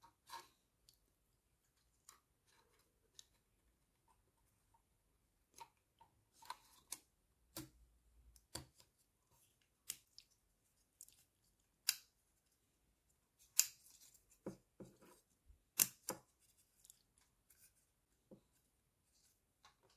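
Irregular sharp clicks and snips of small plastic model-kit parts being cut and handled with hobby tools, a dozen or more short snaps spread through with the loudest a little past the middle.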